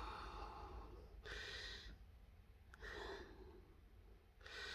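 Faint breathing close to the microphone: about three soft, airy breaths, roughly a second and a half apart.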